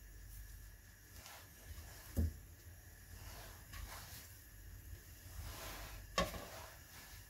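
Quiet hand-handling sounds as soft curd-kebab patties are shaped and set down on a steel plate, with two soft thumps, about two seconds in and again about six seconds in.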